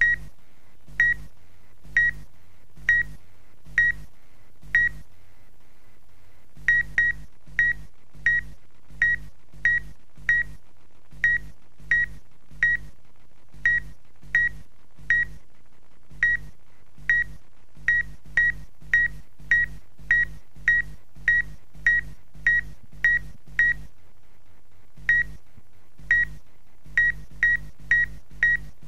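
Short electronic beeps, each a single high tone with a low pulse beneath it, repeating about twice a second in runs broken by a few short pauses.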